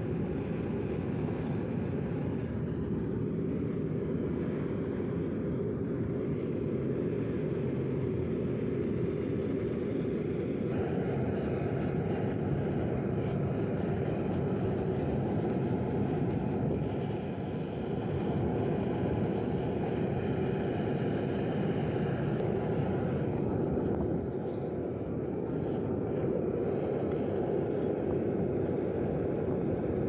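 Homemade diesel oil burner firing into a foundry furnace: a steady rushing roar of compressed-air-atomized diesel burning, driven by a blower fan.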